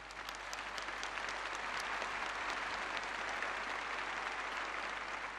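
Large crowd applauding after a line of a speech. The clapping swells up, holds dense and even, and eases slightly toward the end.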